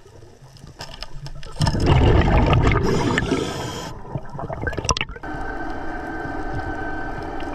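Scuba regulator exhaust bubbles rushing loudly past the diver's head for about two seconds, with a few sharp clicks after. About five seconds in, a steady motor hum with a fixed whine starts: the electric motor of a Tusa underwater diver propulsion scooter running.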